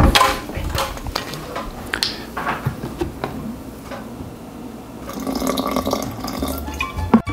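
Vinegar poured from glass containers into a blender jar, a liquid splashing and gurgling into the mustard paste from about five seconds in, after a few knocks and clinks of glassware being handled.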